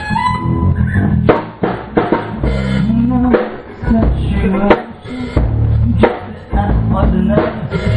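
Live rock band jamming: a drum kit with bass drum and snare hits under electric guitars played through amplifiers, with steady low notes.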